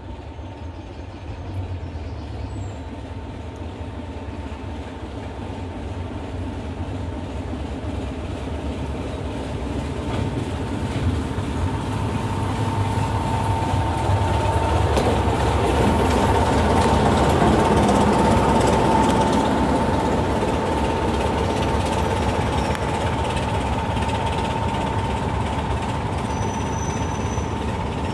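Class 26 diesel-electric locomotive with its Sulzer six-cylinder engine running, approaching and passing close by at low speed hauling coaches. It grows steadily louder to a peak about two-thirds of the way through, then the coaches' wheels keep rolling past, with a thin steady whine throughout.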